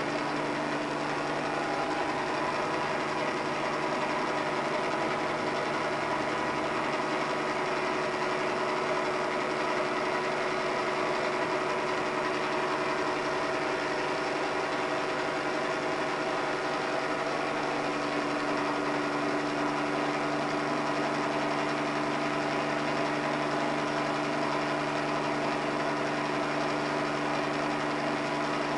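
Helicopter in level flight: a steady engine-and-rotor drone with constant whining tones, unchanging in level.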